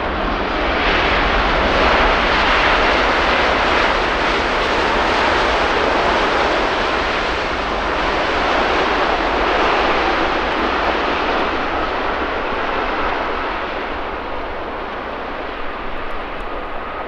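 Arriving airliner's engines, a dense rush of noise that swells about a second in, peaks soon after, and slowly fades away.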